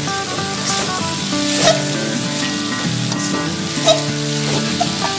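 A metal spatula stirring and scraping stir-fried rice vermicelli in an aluminium wok while it sizzles, with a couple of sharp clacks of the spatula on the pan. Background music with held notes plays throughout.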